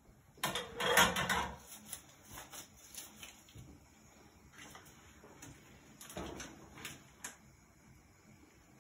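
Kitchenware being handled by gloved hands on a counter and dish rack: a clatter of dishes and a lid about half a second in, then scattered light knocks of a plastic container, and another short clatter around six seconds in.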